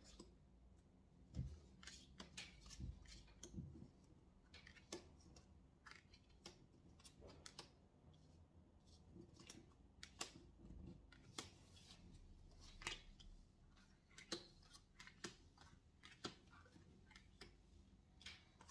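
Tarot cards being dealt one at a time and laid down in rows on a table: faint, irregular clicks and light slaps of card on card and card on tabletop, with a couple of soft thumps on the table in the first few seconds.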